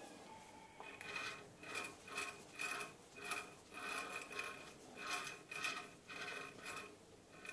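A hen's egg-laying cackle: a faint run of short clucks at one pitch, about two a second.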